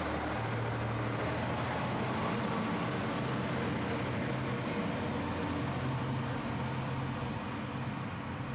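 A large vehicle running steadily with a low hum that steps up in pitch about half a second in, over a continuous wash of noise.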